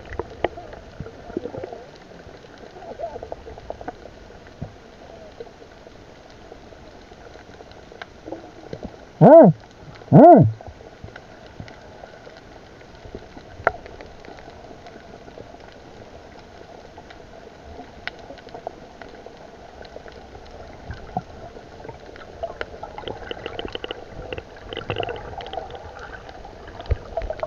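Underwater ambience heard through a submerged camera: a steady muffled hiss with scattered faint clicks. About a third of the way in it is broken by two short, loud, pitched sounds a second apart.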